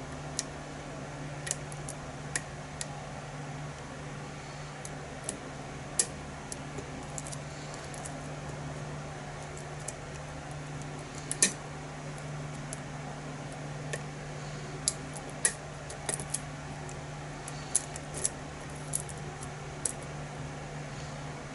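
Lock picks working the pins of a pin-tumbler challenge lock: small, irregular metallic clicks and ticks, the loudest about halfway through, as the pins are probed while the lock sits in a false set. A steady low hum runs underneath.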